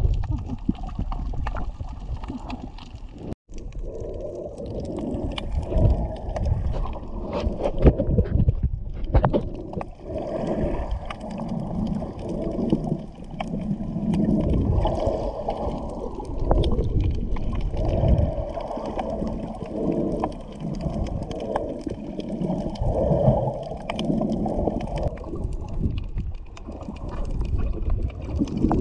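Muffled water sloshing and gurgling, swelling and fading every second or two, with scattered sharp clicks and knocks.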